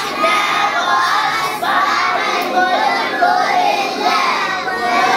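A group of children singing together in unison, many young voices blended.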